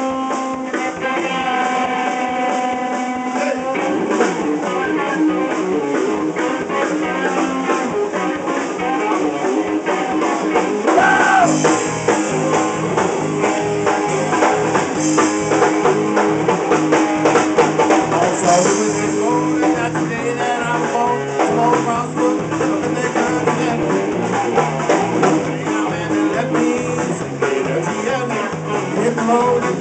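Live rock band playing electric guitar, electric bass and drum kit. A sustained chord rings for the first few seconds, then the full band comes in with drums keeping a steady beat.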